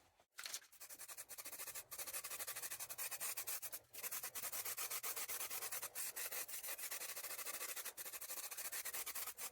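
Aerosol can of U-Pol grey high-build primer spraying: a steady hiss, broken by short pauses about every two seconds between passes.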